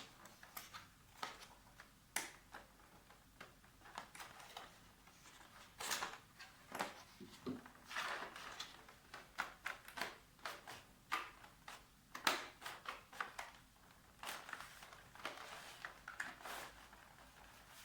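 A keycap set's packaging being opened and handled: scattered light rustles, scrapes and small clicks, irregular and fairly quiet.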